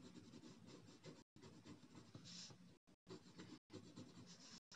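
Faint scratching of a coloured pencil shading on paper in quick, repeated strokes.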